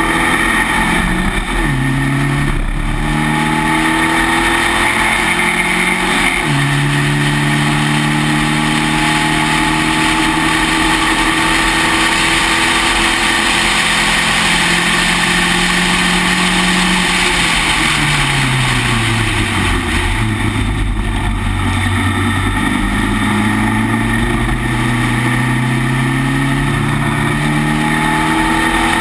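Spec Racer Ford's four-cylinder race engine heard from on board at racing speed. Its pitch steps through a few gear changes in the first seconds, falls for about three seconds past the middle as the car slows for a corner, then climbs steadily again under acceleration, with a steady rush of wind noise throughout.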